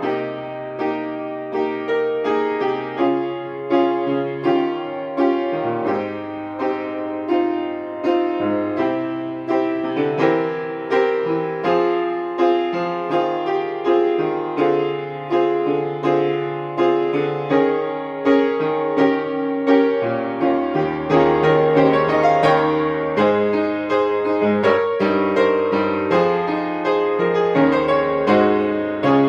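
Solo piano playing the accompaniment to a choral song: a steady flow of chords and broken-chord notes over a moving bass line. The bass goes deeper and the playing gets fuller about twenty seconds in.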